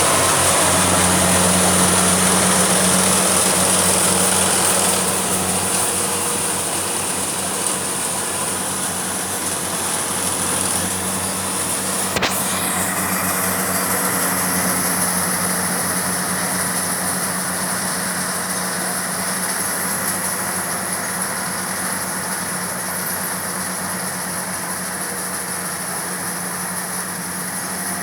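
Rice combine harvester's engine running steadily with a low hum and a high hiss above it, easing slightly in level about five seconds in; a single sharp click about twelve seconds in.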